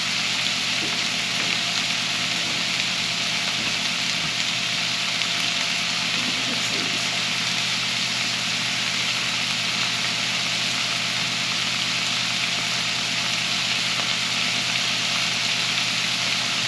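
Ground sausage, onion and green pepper sizzling steadily in a skillet, an even hiss with a faint steady hum underneath.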